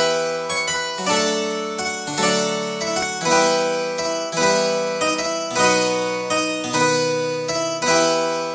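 Instrumental background music: a keyboard playing notes and chords with sharp attacks, each ringing and dying away, about one or two a second.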